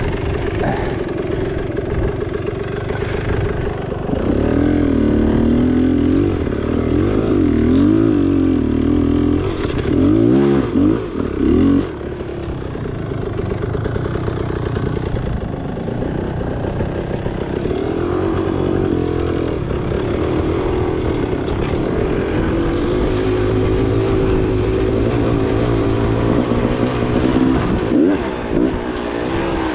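Beta enduro dirt bike engine running under riding load, its pitch rising and falling repeatedly as the throttle is worked, with quick revs between about 4 and 12 seconds in and a brief drop in power just after.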